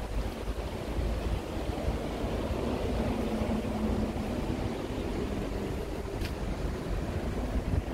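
Steady rushing of flowing stream water, with a low rumble underneath.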